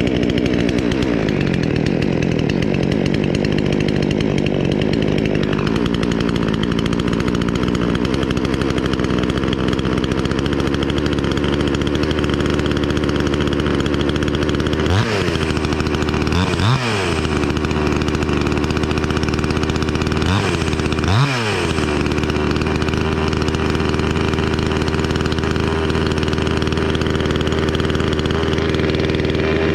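Wemars WS-6220G 62cc two-stroke chainsaw engine running at idle, its pitch settling down over the first couple of seconds. About halfway through it takes four quick throttle blips, two close together and then two more a few seconds later, each revving up and dropping straight back to idle.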